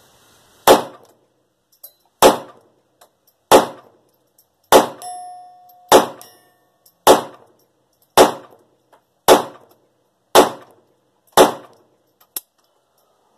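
Phoenix Arms HP22A .22 LR semi-automatic pistol firing ten shots at a steady pace, roughly one a second, each a sharp crack. There are a few light ticks between the shots and a brief ringing tone right after the fifth.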